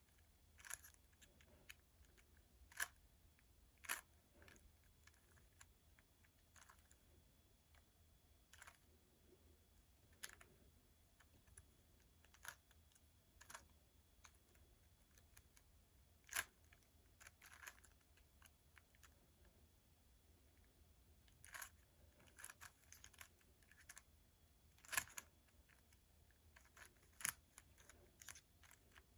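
Rubik's cube being turned by hand: faint, irregular plastic clicks as layers are rotated, a few seconds apart, with little else above a quiet room hiss.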